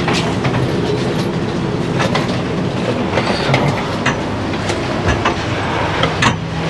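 Passengers filing out of a stopped passenger-train coach, with many small knocks and clatter of footsteps and luggage over the steady hum of the train.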